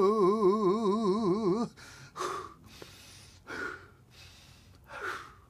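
A man's unaccompanied singing voice holds a long note with wide vibrato, which cuts off about a second and a half in. Then come three loud, breathy gasps, evenly spaced about a second and a half apart.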